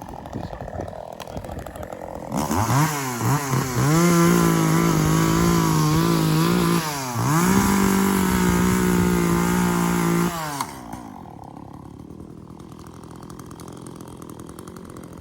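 Two-stroke chainsaw revved up from idle in a few quick blips, then held at high revs with one brief dip. The throttle is let off about ten seconds in and the engine note drops away.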